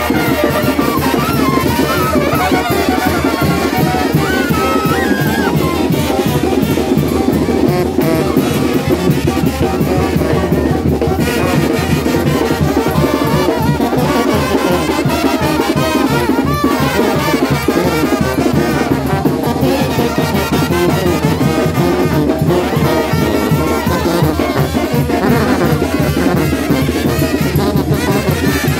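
Mexican banda brass band playing loud: trombones and trumpets over sousaphone, with bass drum and cymbals keeping a steady beat.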